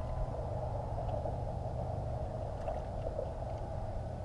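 Steady low, muffled rumble with faint water lapping and small splashes around a kayak on open water.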